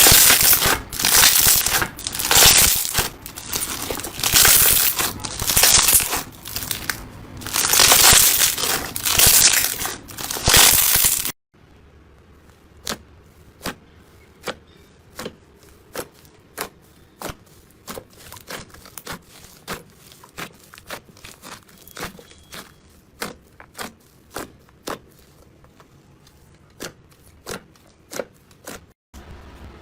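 Slime being squished and kneaded: a loud, dense run of crackling and crunching, then, after a cut about eleven seconds in, a much quieter stretch of separate sharp slime clicks and pops, one or two a second.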